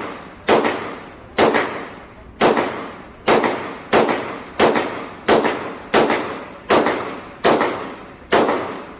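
Gunshots fired one at a time at a steady pace, about a dozen, a little under one a second, each with a short echoing tail.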